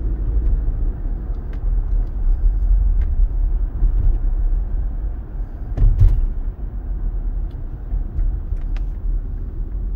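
Steady low road rumble of a moving car heard from inside the cabin, with a few faint clicks and one louder knock about six seconds in.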